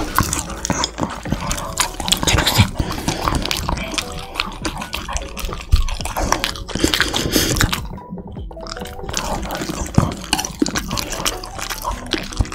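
Close-miked wet eating sounds: a Shiba Inu chewing and licking food off a wooden board, a dense run of irregular small clicks and smacks, with sticky sounds of sea grapes being handled and dipped in sauce with chopsticks.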